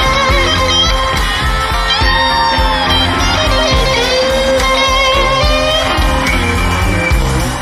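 Live band playing a blues on electric guitars, bass and drums, including a black Stratocaster-style electric guitar, with long held lead notes that bend up and down in pitch.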